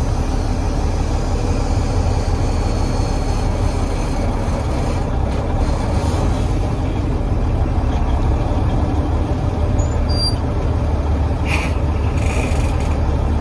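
Semi truck's diesel engine running steadily, heard from inside the cab as the driver works the manual gearbox, with a few brief noises about five seconds in and again near the end.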